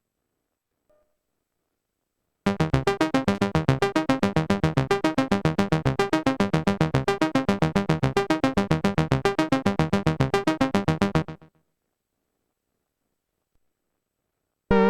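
Korg Minilogue analog synthesizer playing a preset: a fast run of evenly spaced repeated notes, about eight a second, lasting about nine seconds and stopping abruptly. A new sustained synth tone starts near the end.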